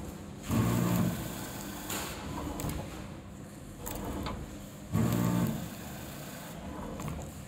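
Automatic pouch packing machine running through its cycle: a loud mechanical hum and clatter about half a second in and again about five seconds in, one per pouch sealed and cut, with lighter clicks between.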